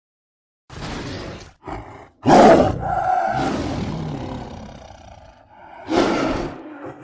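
Big-cat roars and growls made as sound effects for a saber-toothed cat: a growl about a second in, a short snarl, then the loudest roar, which trails off over about three seconds, and another roar near the end.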